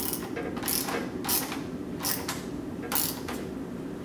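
Hand socket ratchet clicking in about five short strokes as it tightens a nut on a terminal block.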